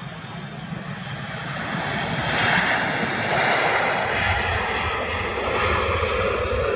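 Boeing 777-300ER's GE90 engines in reverse thrust on the landing rollout: the noise builds over the first two or three seconds, then holds loud and steady.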